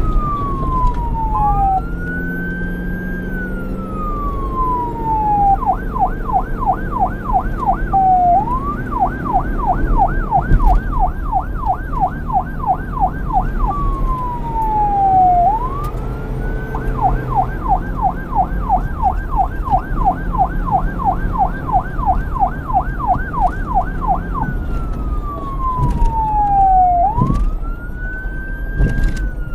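Police car electronic siren switching between a slow wail, each rise and fall taking a couple of seconds, and a fast yelp of about four cycles a second, over a steady low rumble.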